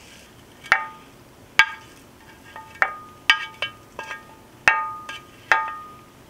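A wooden spatula knocking against a black metal pan as fried shrimp are scraped off it into a clay pot: about a dozen irregular knocks, each followed by a short ringing.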